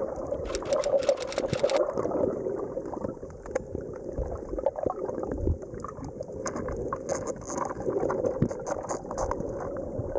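Muffled underwater sound: a steady murky wash of water noise with many scattered clicks and crackles. There is a quick run of sharp clicks in the first two seconds.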